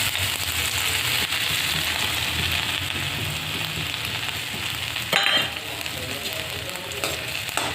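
Grated ginger and asafoetida sizzling in a spoonful of hot oil in a kadhai, the hiss loudest at first and slowly dying down. A single sharp knock comes about five seconds in.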